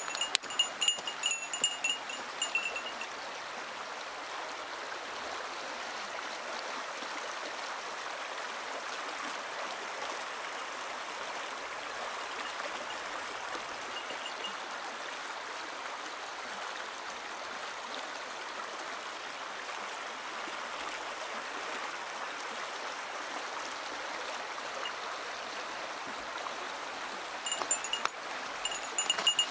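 Shallow stream babbling steadily over gravel. A small bell jingles in the first few seconds and again near the end.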